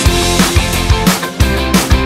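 Rock music with a steady drum beat, bass and guitar.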